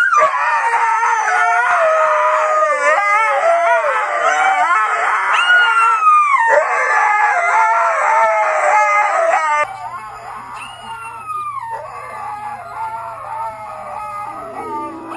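Dogs howling: long, wavering howls that slide up and down in pitch. About ten seconds in the sound cuts to a quieter stretch of howls from another dog.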